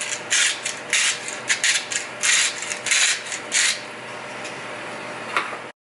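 Short rasping strokes in a frying pan of cooking eggs, about two to three a second, that stop a little before four seconds in. A steady soft hiss follows and cuts off suddenly near the end.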